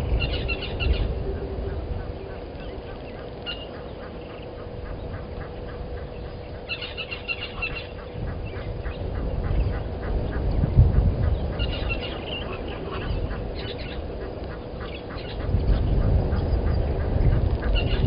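Bird calls: short bursts of rapid, rattling high notes, about four times, with fast ticking in between, over a low rumble and a faint steady hum.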